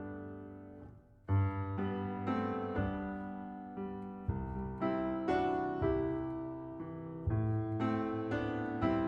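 Background piano music: sustained chords struck about once a second, each fading away, with a short pause about a second in.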